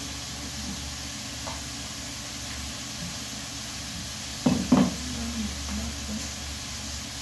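Steady hiss and low hum of a small room during a meal, with two short sounds close together about four and a half seconds in.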